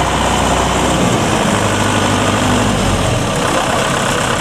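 Heavy engine idling steadily, its low note dropping about a second in and shifting again a little after three seconds.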